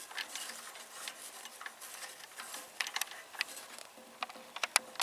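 Scattered light clicks and taps of hands working on small metal parts, over a faint hiss.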